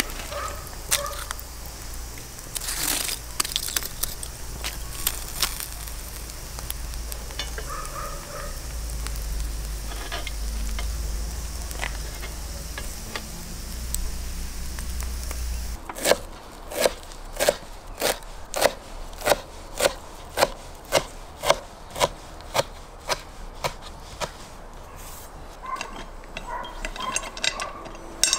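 Sturgeon steaks sizzling on skewers over a charcoal grill, with the coals crackling now and then. About halfway through, this gives way to a regular series of sharp knocks, roughly one and a half a second.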